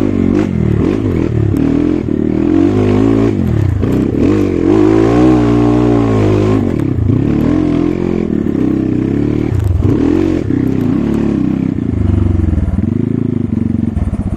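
Trail motorcycle engine revving up and down over and over under changing throttle as the bike is ridden over a rough dirt track, with the bike's frame clattering.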